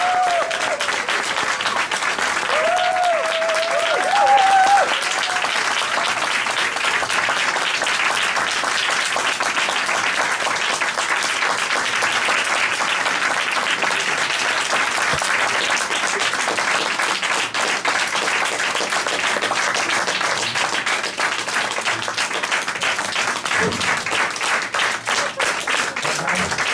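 Audience applauding steadily, with a few high shouts in the first five seconds or so.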